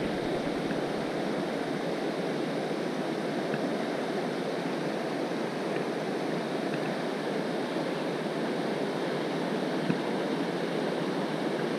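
River water rushing steadily, with one light click near the end.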